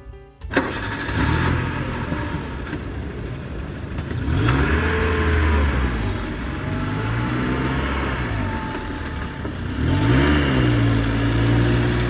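A heavy vehicle's engine runs and revs, its pitch rising and falling several times. It cuts in abruptly about half a second in.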